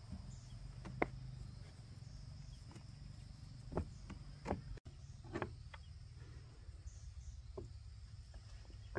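A handful of sharp, isolated knocks and clicks at irregular intervals, over a steady low hum.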